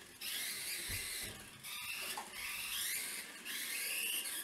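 A WLToys 1/24-scale micro RC car's small electric motor whining in about four short throttle bursts, its pitch rising in each burst as the car drives on carpet.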